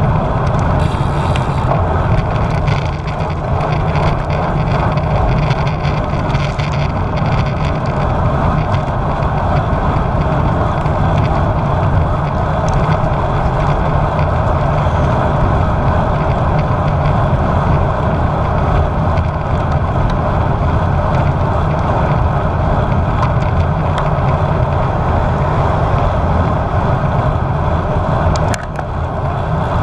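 Wind rushing over the microphone of a GoPro on a road bike being ridden: a loud, steady roar, heaviest in the low end, that dips briefly near the end.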